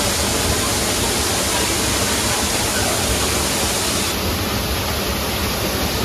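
Rushing water: the steady, even roar of a waterfall and its stream.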